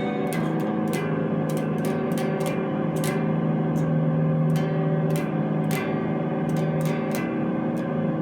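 Instrumental music with a distorted electric guitar: sustained chords that change every few seconds, struck by sharp, irregular hits.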